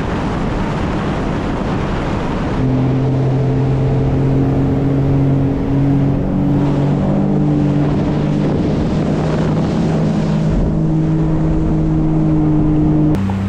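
Sea-Doo Explorer Pro jet skis running at speed on open water. At first there is a dense rush of wind and spray; about two and a half seconds in, a steady engine drone comes through, its pitch shifting slightly a few times.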